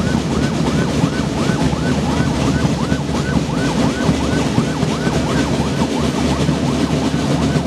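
A school marching drum band of snare, tenor and bass drums plays a dense, steady beat. Over it, a siren sweeps rapidly up and down about three times a second.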